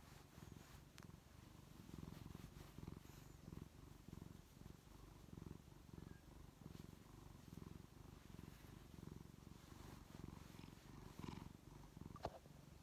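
Domestic cat purring faintly and steadily while its scalp is pinched and massaged. A single short click comes near the end.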